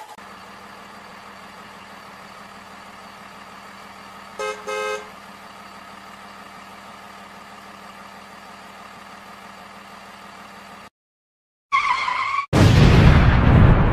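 A car engine sound effect running steadily, with two short car-horn honks about four and a half seconds in. Near the end, after a brief gap, a short wobbling tone and then a loud rushing noise.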